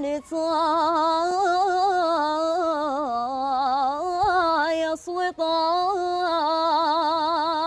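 A woman singing solo and unaccompanied, holding long ornamented lines with a wide vibrato, with a brief break about five seconds in.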